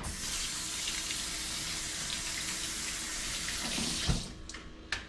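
Kitchen sink faucet running as a hand is rinsed under it: a steady rush of water that starts suddenly and stops about four seconds in, ending with a sharp knock.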